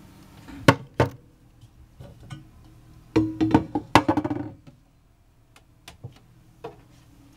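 Sharp knocks and clicks from handling in a small wood-panelled cabin: two sharp knocks about a second in, then a clattering run of knocks with a short low tone between about three and four and a half seconds in, and a few faint clicks after.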